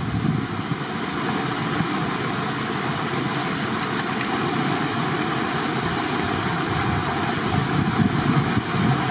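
Steady outdoor rushing noise with wind buffeting the microphone in an uneven low rumble.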